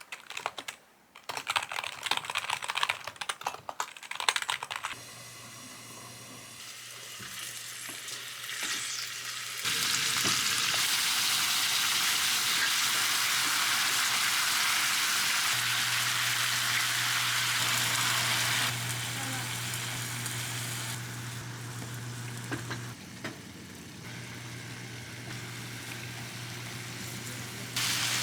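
Quick clicking and knocking of kitchen utensils for a few seconds, then food sizzling steadily in a hot pan from about ten seconds in, under a faint low hum.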